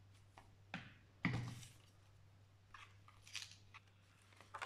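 Hands handling stiff paper card and a die-cut paper ship on a table: a sharp tap a little after a second in, with brief paper rustles and brushing around it.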